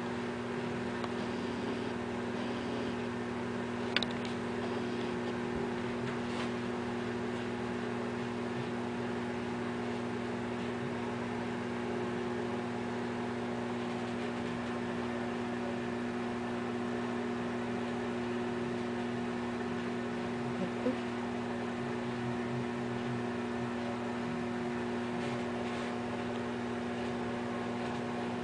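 Steady machine hum at a constant pitch, with a faint click about four seconds in and another about twenty-one seconds in.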